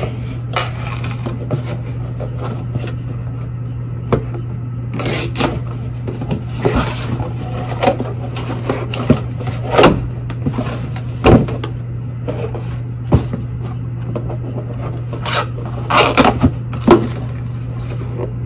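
Packaging and a shoe box being handled during an unboxing: irregular rustling, scraping and knocks, sharpest around the middle and near the end, over a steady low hum.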